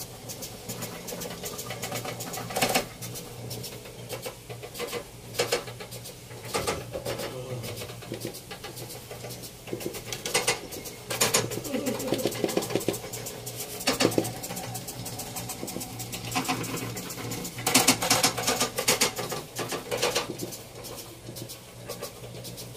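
Old treadle sewing machine driven by foot: the cast-iron treadle and the machine's mechanism clicking and rattling in irregular bunches, over a steady low hum.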